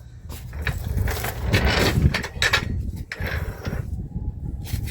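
A series of irregular metal knocks and scrapes as the front differential of a GM full-size SUV is pushed and shifted against the axle and frame, over a steady low rumble.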